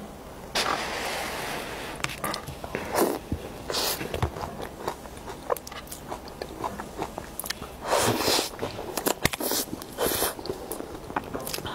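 Close-miked eating sounds. A knife cuts and scrapes through a soft green sponge cake with cream filling, with short clicks of metal cutlery. Then come wet chewing and mouth sounds as a mouthful of cake is eaten.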